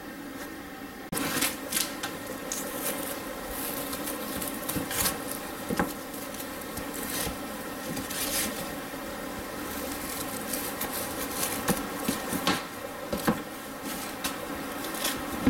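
Chef's knife slicing a slab of still partly frozen pork belly on a wooden cutting board, starting about a second in: irregular knocks of the blade on the board and scraping strokes through the meat.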